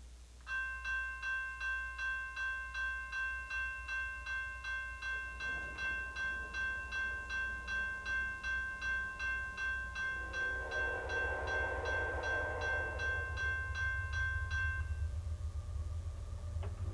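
Railroad grade-crossing warning bell ringing in fast, even strokes, stopping near the end. Under it, the low rumble of an approaching freight train's BNSF ES44C4 diesel locomotives builds over the last several seconds.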